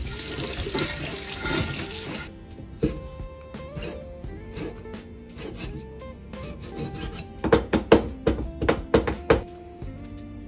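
Kitchen tap running into the sink while bean sprouts are washed, cut off about two seconds in. Background music follows, with a quick run of sharp knocks near the end.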